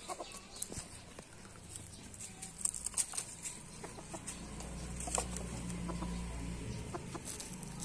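Silkie chickens clucking while foraging, with scattered short clicks and scratches of pecking in the litter; the loudest is a quick run of clicks about three seconds in.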